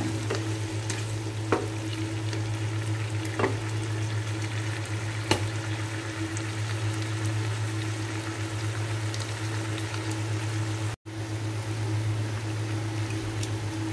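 Whole shrimp sizzling with garlic and onion in a nonstick frying pan, with a wooden spatula clicking against the pan a few times during the first five seconds. A steady low hum runs underneath, and the sound drops out for a moment about eleven seconds in.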